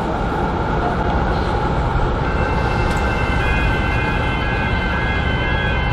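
Melbourne tram running along street track with a steady noise of wheels and motors. About two seconds in, a steady high whine of several tones sets in and holds.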